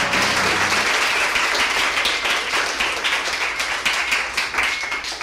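Audience applauding, with the last notes of a song dying away about a second in; the applause thins out near the end.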